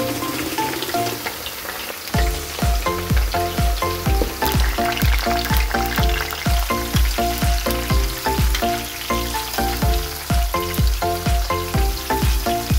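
Pumpkin, potato and green pepper slices deep-frying in a pan of oil, a steady bubbling sizzle. Over it plays bright electronic background music, whose steady bass beat of about two thumps a second comes in about two seconds in.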